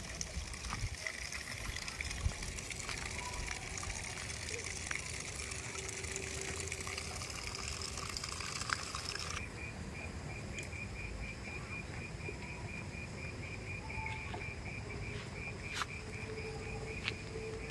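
Outdoor ambience: a steady hiss with a few faint clicks, then, about halfway through, a rapid, evenly pulsing chirping trill starts and keeps going.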